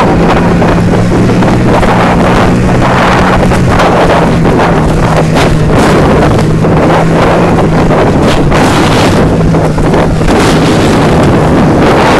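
Snowmobile engine running steadily at speed, heard from the sled towed behind it, under heavy wind buffeting on the microphone with frequent bumps and knocks.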